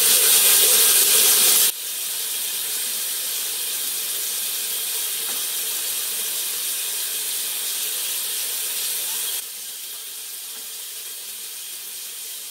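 Steady, even hiss of running water, dropping abruptly in level about two seconds in and again near the end.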